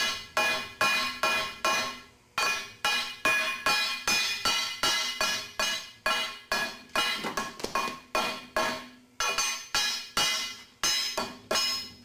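A ball peen hammer strikes a stud-welded cable mount on a steel plate over and over, about three blows a second, each blow ringing metallically. There are brief pauses about two seconds in and about nine seconds in. The blows are a strength test, hammering on the weld until the mount fails.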